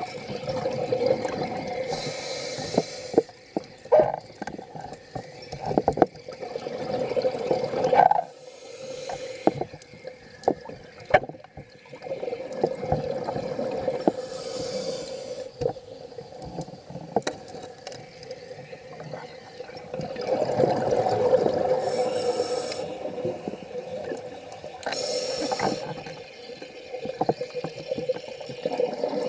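Scuba diver breathing through a regulator underwater: a hiss on each inhalation about every five to six seconds, with bubbling exhaust and small clicks in between.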